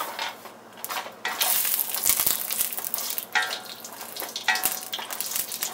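Cashews frying in hot ghee in a stainless steel kadai, sizzling, while a wooden spatula stirs and scrapes them around the pan with a few light knocks. The sizzle swells about a second in.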